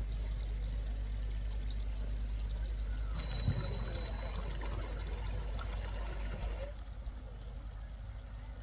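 Water trickling into a flooded rice paddy, heard from about three seconds in for a few seconds, over a steady low rumble. A brief thin high tone sounds as the trickling starts.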